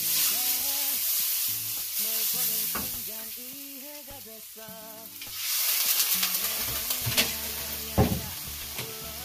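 Food sizzling as it is stir-fried in a hot pan. The sizzle eases off in the middle and picks up again about five and a half seconds in. A spatula knocks against the pan a few times, loudest about eight seconds in.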